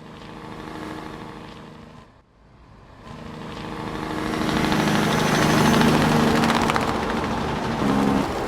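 Farm tractor engine running steadily. It dips briefly about two seconds in, then grows louder over the next few seconds and holds.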